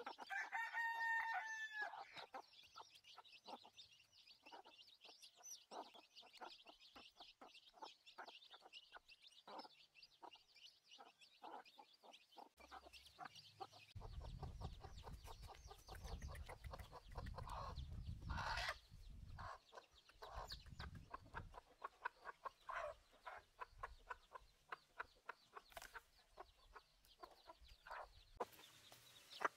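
Free-ranging chickens at feeding: one drawn-out chicken call about two seconds long opens, then chicks peep rapidly and hens cluck all through. A low rumble runs for several seconds in the middle.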